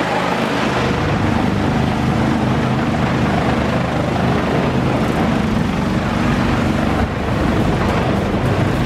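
A large engine running steadily under load, a continuous loud drone with a short dip about seven seconds in.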